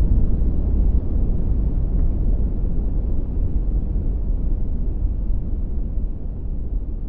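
Deep, noisy rumble with most of its weight in the low end and no clear pitch, slowly fading away: a designed explosion-like rumble in a Godzilla sound effect.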